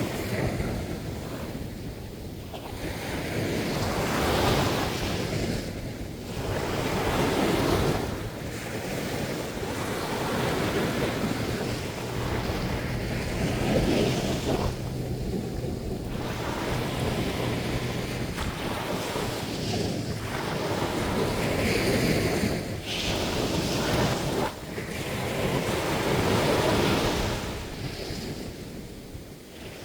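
Sea surf on a sandy beach: waves breaking and washing up the shore, the sound swelling and falling away every few seconds, with wind buffeting the microphone.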